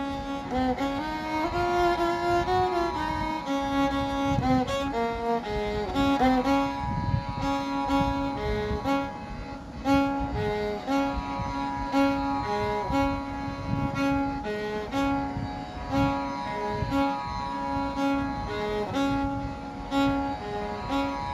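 Background instrumental music: a melody over a repeating low note with a steady beat.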